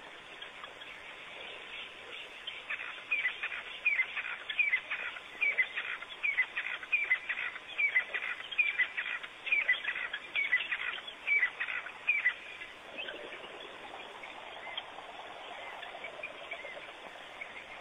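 A run of short, high chirping calls, about two a second, each dropping in pitch, that stops about twelve seconds in. A fainter call falling in pitch follows, over a steady outdoor hiss.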